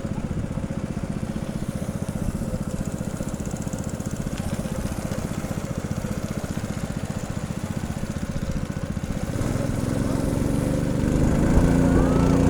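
Boat engine running steadily with a rapid pulse, growing louder about nine seconds in as it is throttled up.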